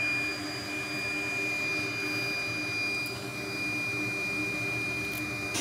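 Hakko hot tweezers giving off a steady, high-pitched electronic whine that cuts off suddenly near the end, over steady fan noise.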